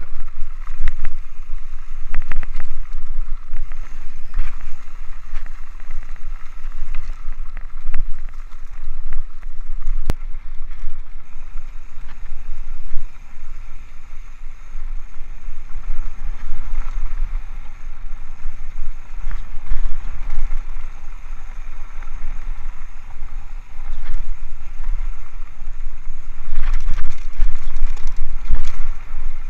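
Rocky Mountain Altitude mountain bike descending a rough dirt singletrack, heard through an action camera: a steady wind rumble on the microphone, with tyre noise and the bike rattling and knocking over bumps, the knocks busiest near the end.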